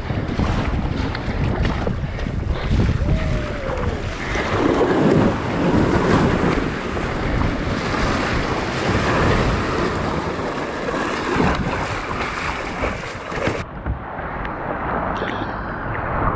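Breaking surf rushing and foaming around a fishing kayak as it rides in through the shore break, with wind buffeting the microphone. The noise is loudest about a third of the way in and stays dense throughout.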